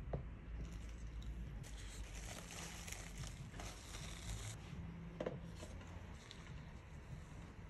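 Plastic cling film crinkling for about three seconds as it is peeled off a stainless steel bowl of dough. A light knock comes at the start, and another about five seconds in as a plastic box is set down.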